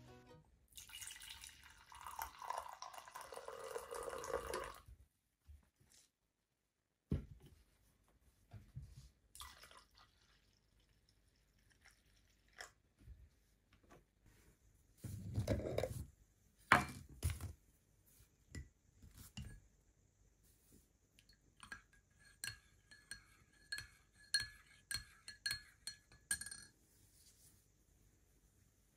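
Faint tableware sounds: scattered knocks and clinks of a ceramic mug and plate, with a run of light ringing clinks from a spoon stirring in the mug in the last third. A few seconds of soft rushing noise open it, followed by a short stretch of silence.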